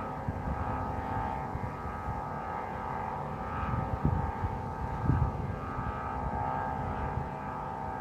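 Vietnamese singing kite's hummer (giăng) droning in a strong wind: a steady, many-toned hum that holds its pitch throughout.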